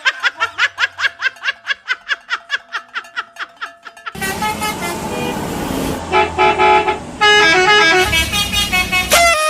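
Bus "telolet" horn, a set of multi-tone horns, playing: first a fast run of short toots, about six a second, then a tune of held notes stepping in pitch over engine and road noise, cutting off near the end.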